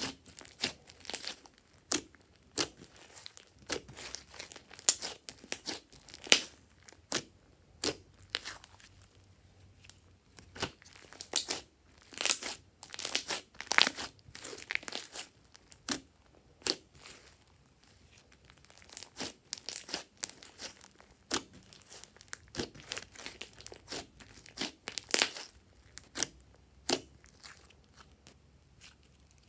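Hands kneading, squeezing and pulling apart a thick beige slime, giving irregular sharp pops, clicks and crackles, some in quick clusters.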